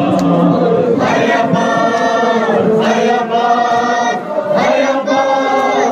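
A crowd of men chanting a Muharram mourning lament (noha) together in chorus, in long held phrases that rise and fall.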